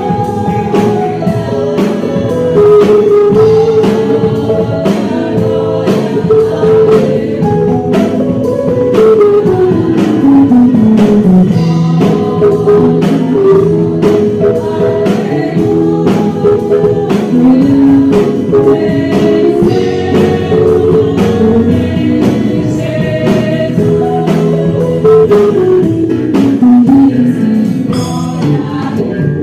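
Stratocaster-style electric guitar playing a lead melody in gospel worship music, with long sliding notes over a full accompaniment.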